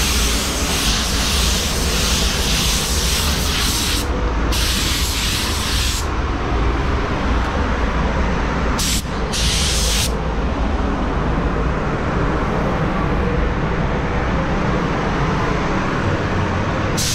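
Automotive paint spray gun hissing in long passes, cut off and restarted several times: on for about four seconds, again for a second and a half, two short spurts around the middle, then a pause before it resumes near the end. Under it runs the steady low rumble of the paint booth's air system.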